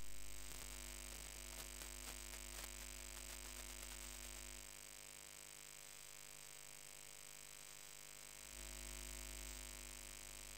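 Near silence after the microphone lead is knocked loose: only a faint, steady electrical hum remains, with a few faint clicks about two seconds in.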